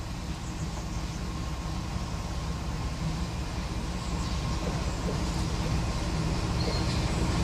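British Rail Class 14 diesel-hydraulic locomotive D9537 approaching with a train of coaches. Its Paxman diesel engine gives a steady low drone that grows gradually louder as it nears.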